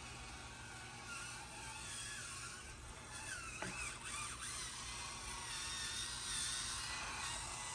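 Small RC crawler truck's electric motor and gear drivetrain whining as it drives, the pitch wavering up and down with the throttle and getting a little louder partway through.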